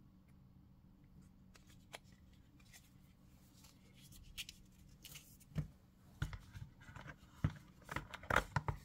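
Hands handling packaging in a cardboard box tray: light rustling and scraping, then a run of sharp clicks and knocks in the second half as the white plastic 120W charger is worked out of its cardboard compartment.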